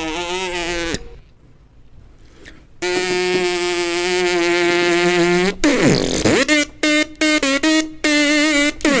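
Tom and Jerry-style cartoon sound effects: a wavering held tone that stops about a second in, then a second, steadier held tone. It ends in a swoop that dips and rises, followed by a quick run of about seven short pitched blips.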